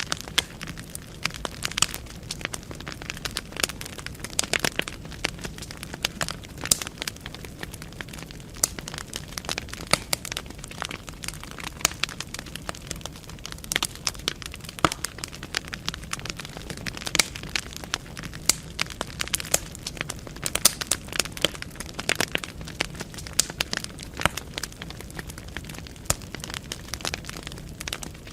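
Wood fire burning in a fireplace: many sharp, irregular crackles and pops of burning logs over a soft low hiss of the flames.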